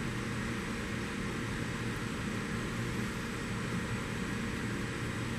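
Steady low hum with an even hiss: constant background room noise, with no distinct knocks or clicks.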